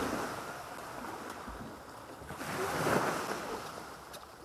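Sea surf washing onto a beach, a steady rush that swells, eases, and swells again as another wave breaks about three seconds in.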